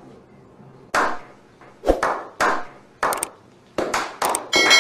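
A series of sharp percussive hits, each dying away quickly, about one a second at first and then coming faster, with a ringing chime-like tone entering near the end.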